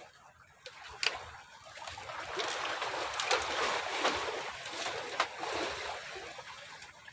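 Sea water washing and splashing, swelling over a few seconds and then fading, with a few sharp clicks.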